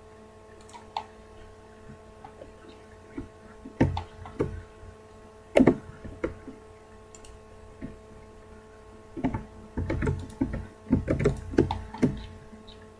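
Computer keyboard keystrokes and mouse clicks: a few scattered single clicks, then a quicker run of them near the end, over a steady electrical hum.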